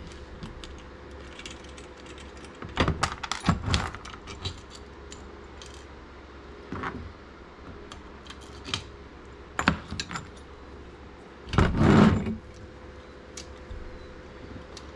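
Small metal hardware, bolts and washers, clinking and clicking as it is handled and sorted by hand, with scattered light taps and a longer, louder clatter near the end.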